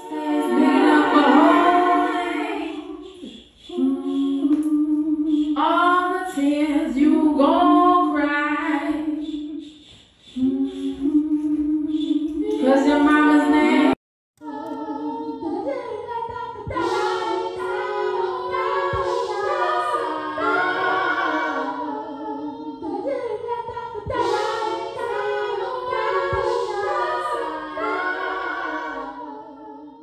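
A woman singing a cappella, with no instruments. The singing breaks off suddenly about halfway through and a second sung passage follows.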